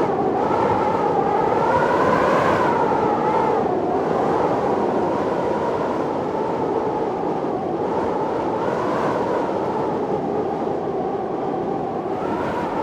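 Storm wind howling: a steady rush with a whistling tone that wavers slowly up and down in pitch.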